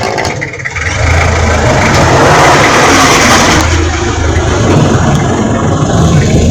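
A vehicle engine running with a steady low hum under loud road and tyre noise. The noise swells a couple of seconds in and eases toward the end.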